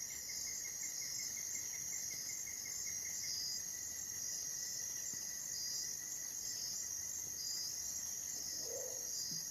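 Night chorus of crickets and other insects: a continuous high-pitched trilling that swells and fades in a regular beat, with a lower, rapidly pulsing trill beneath it in the first few seconds.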